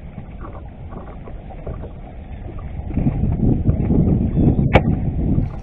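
Wind buffeting the action-camera microphone as a low rumble that swells louder about three seconds in, with a single sharp click near the end.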